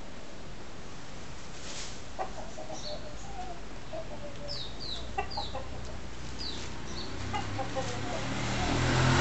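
Betong rooster clucking now and then in short calls. Near the end an engine starts and grows steadily louder.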